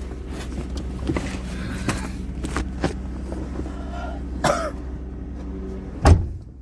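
Diesel engine idling steadily, with a few light clicks and knocks, a short cough-like sound about two-thirds of the way in, and one loud thump near the end.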